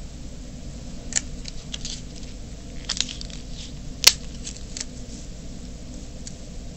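Paper fan blades and tape being handled: scattered crinkles and light clicks, with one sharp snap about four seconds in, over a steady low hum.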